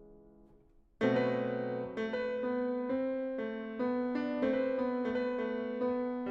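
Steinway grand piano played solo. A held chord dies away into a brief pause, then a sudden loud chord about a second in opens a new passage, with notes struck about twice a second over sustained bass notes.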